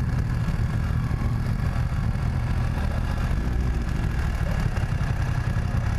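BMW 900 cc parallel-twin motorcycle engine running steadily at low revs while the bike is ridden slowly, a low rumble heard from on the bike.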